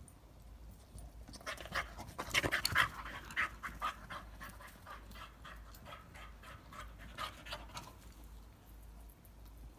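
English Springer Spaniel panting hard and fast, a quick rhythmic run of breaths, loudest about two to three seconds in and fading after about eight seconds.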